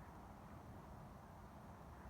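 Near silence: a steady low hiss of room tone, with no distinct sound event.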